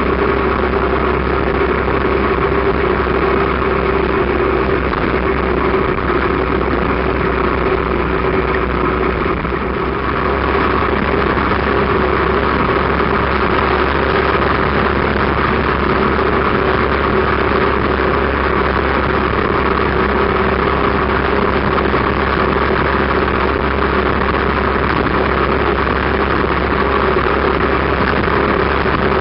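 Motorcycle engine running steadily at road speed, with constant wind and road noise, heard from the sidecar. The level dips slightly about ten seconds in.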